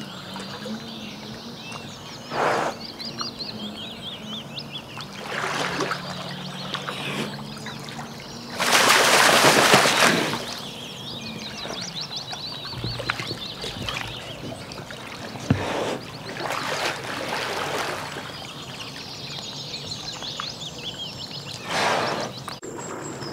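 Water splashing and sloshing in bursts as a brown bear swims and wades, the loudest splash about nine seconds in. Birds chirp in the background.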